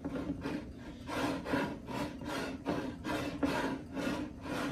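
Twine rasping against a glass vase as it is wound around and pushed down by hand, in repeated short strokes about two to three a second.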